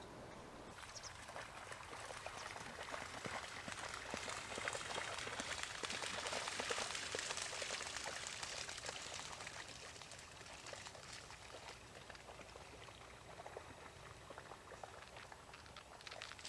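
Wading steps through shallow water and wet vegetation, a continuous splashing slosh that swells and then fades as the walker moves.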